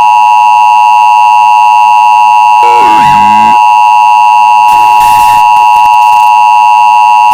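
Loud, steady two-tone Emergency Alert System attention signal. A short downward-sliding sound cuts across it about three seconds in, and a hiss joins it about five seconds in.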